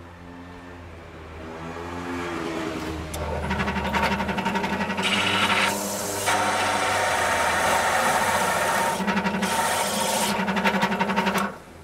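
Bench drill press running while its cutter bores through a small wooden disc. The motor hum is joined after about three seconds by a loud rasping cut into the wood, which eases briefly near the middle and stops abruptly near the end.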